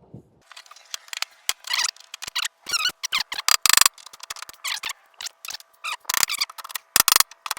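Nails being pried out of wood: a quick run of short, high squeaks that slide in pitch, mixed with sharp clicks.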